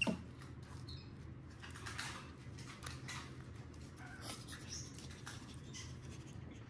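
Faint rustling and crinkling of paper with small scratches as a capuchin monkey handles sheets of paper on a stone countertop, with a few short, faint high squeaks. A low steady room hum runs underneath.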